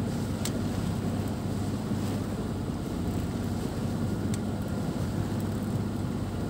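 Wind buffeting the microphone and water rushing along the hull of a sailboat under way, a steady rush with a low hum underneath.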